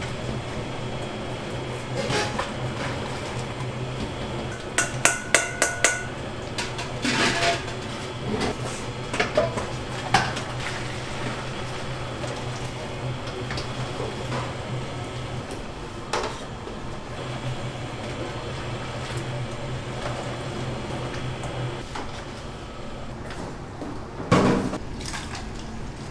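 Kitchen clatter of dishes and metal utensils: scattered clinks and knocks, with a quick run of four ringing clinks about five seconds in and a louder knock near the end. Underneath runs a steady low machine hum that stops shortly before the end.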